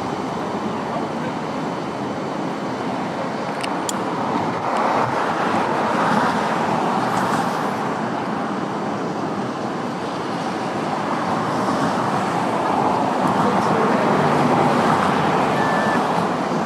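Steady road traffic noise from cars crossing the bridge, swelling twice as vehicles pass close by.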